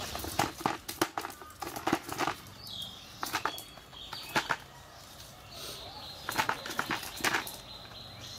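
Wet cast net being picked through by hand on bare ground to take out the catch: bursts of sharp slaps and rattles, about one cluster a second.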